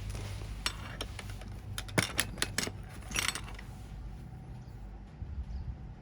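Metal engine parts and tools clinking and clattering a dozen or so times in quick succession, over a low steady hum.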